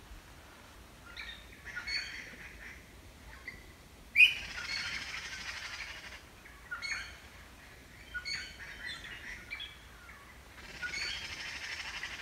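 Birds calling: short high chirps and sweeps, with two longer harsh, rattling calls, the first starting sharply about four seconds in and the second near the end.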